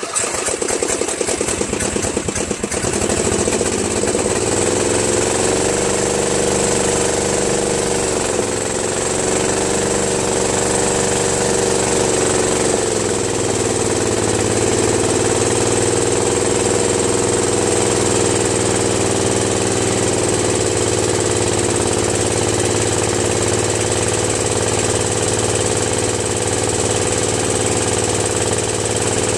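Murray Select 13.5/40 riding mower's 13.5 hp engine catching just as it is started, then running steadily, its pitch sagging briefly about eight seconds in and again about thirteen seconds in. It is an engine whose compression the owner measured low at 75 psi, which he blames on worn valves.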